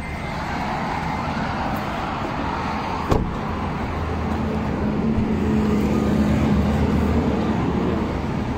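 Street traffic: a steady rumble of road noise, with a vehicle engine hum growing louder from about four seconds in and easing off near the end. A single sharp click sounds about three seconds in.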